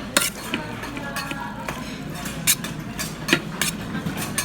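Metal spoon clinking and scraping against a bowl while bibimbap is stirred and mixed, with a few sharp clinks: once near the start, then about two and a half seconds in, and twice more in quick succession after that.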